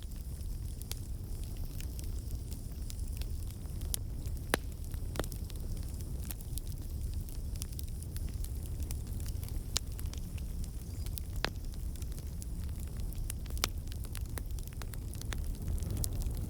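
Campfire burning: a steady low rumble of flames with sharp, irregular crackles and pops from the burning wood.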